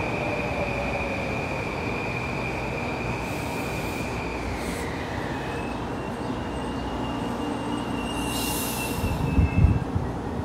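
Metro-North M8 electric multiple-unit train slowing to a stop: the motor whine falls in pitch while the wheels and brakes squeal high and steady, one squeal gliding down and another taking over. Near the end there is a short hiss, then a few heavy low thumps as it halts.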